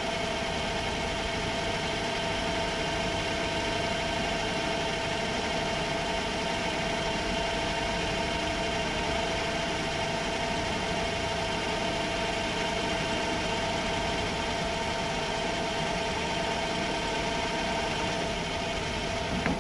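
Myford metal lathe running steadily under power feed, taking a light turning pass on a shaft: an even mechanical whir with a steady whine.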